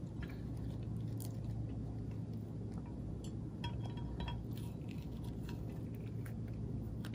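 Faint handling sounds of fingers arranging food and folding a wet rice paper wrapper on a ceramic plate: a few small scattered clicks and soft contact noises over a steady low hum.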